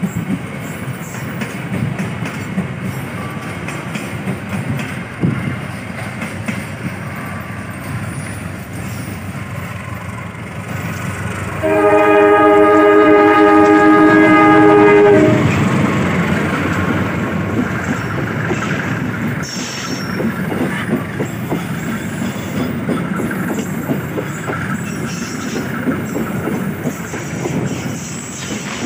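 Passenger train rolling past with a steady rumble and wheel clatter. About twelve seconds in, a diesel locomotive sounds one long multi-tone air horn blast lasting about three and a half seconds, the loudest sound here, and its coaches then clatter past close by.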